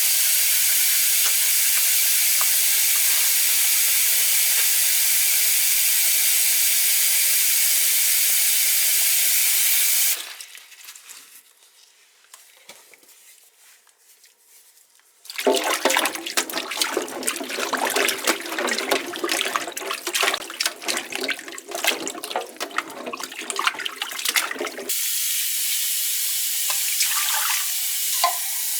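Water running from a kitchen tap as a steady rush that cuts off after about ten seconds. After a few quiet seconds comes a louder, splashier stretch of water with many small knocks, which stops suddenly, and then a softer steady hiss near the end.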